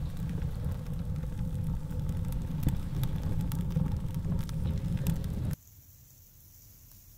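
Wood fire burning in a small cast-iron wood stove with its top lid open: a low rumble of the draft with scattered crackles and pops. It cuts off suddenly about five and a half seconds in, leaving only a faint hiss.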